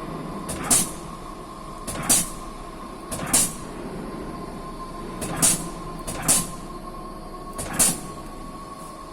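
Leadwell T6M CNC lathe running: a steady machine hum with a constant whine, broken by six short hissing bursts about a second or two apart.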